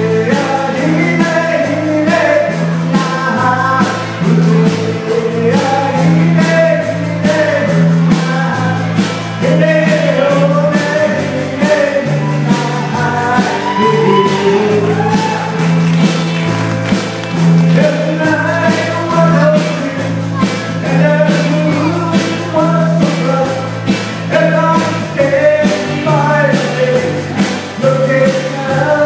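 Live band of electric guitars, acoustic guitar, bass and drums playing an upbeat country song, loud and without a break, over a steadily stepping bass line.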